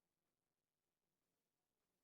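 Near silence: almost no sound at all.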